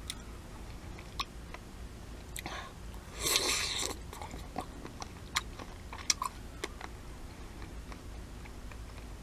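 Crunchy Polish dill pickle spear being bitten and chewed, close up: sharp crisp crunches scattered through, with a louder, longer crunching spell about three seconds in.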